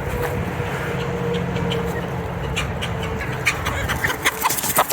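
A motor vehicle's engine running with a steady low drone that fades after about four seconds. Short chicken clucks come in over it in the second half.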